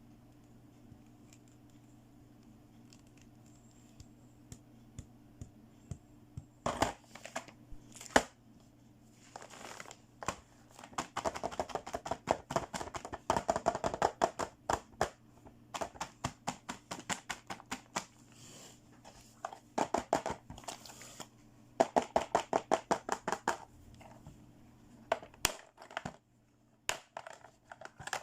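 Hands unboxing a toy playset: plastic packaging crinkling and rustling in quick runs of crackles, with scattered clicks. A steady low hum underneath stops near the end.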